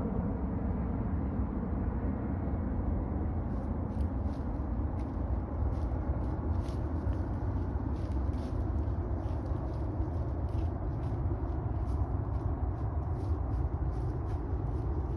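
Steady low rumble of distant traffic. From about three seconds in, faint short high ticks repeat irregularly over it.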